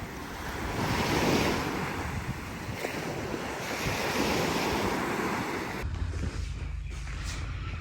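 Surf washing in, swelling and fading about every three seconds, with wind buffeting the microphone. About six seconds in it switches abruptly to a steady low wind rumble.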